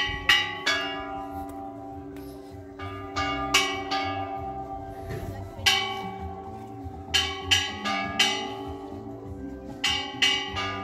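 Bells rung in an uneven rhythm: clusters of two to four strikes at several pitches, each strike ringing on and fading under the next.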